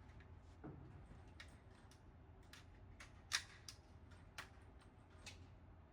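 Near quiet, with a scattering of faint, sharp clicks and one louder knock about three and a half seconds in.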